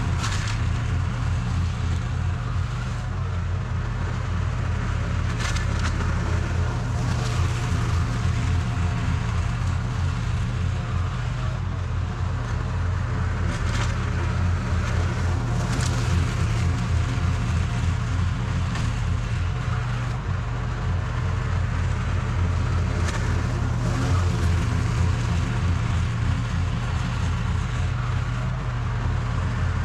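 Toro TimeCutter SS4260 zero-turn mower running steadily under load while mowing. A few brief crackles come through the cutting noise.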